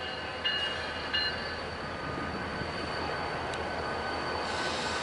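A BNSF diesel switcher locomotive and its freight cars rolling slowly: a steady rumble with thin, high wheel squeal. Two short clanks come about half a second and a second in.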